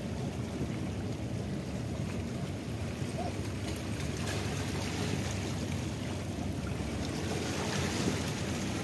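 Steady shoreline harbour noise: wind on the microphone and small waves washing against the rocks at the water's edge, with no distinct events.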